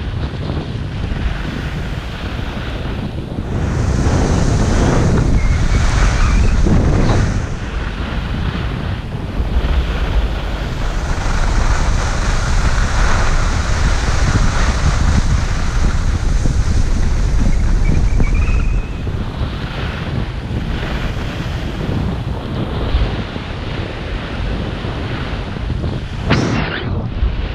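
Wind rushing over a head-mounted GoPro microphone during a ski run, mixed with the hiss and scrape of skis on packed snow. It swells louder twice, in two long stretches, and a short sharp scrape comes near the end.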